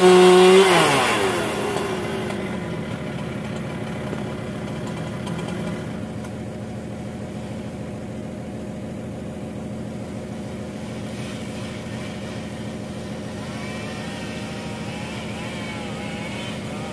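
Chainsaw at full throttle that winds down about a second in, leaving a steady engine idling underneath for the rest.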